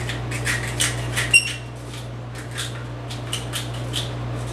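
Pepper mill grinding over a pot: a run of short grinding strokes, about three a second, then a single sharp metallic ping about a second and a half in, followed by a few softer grinding strokes.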